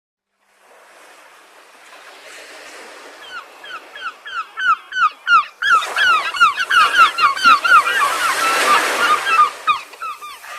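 Surf washing on a beach, with a flock of birds calling over it. The calls are many short notes that drop in pitch, overlapping several a second from about three seconds in. The track begins after a brief silence, and a louder wave swells near the end.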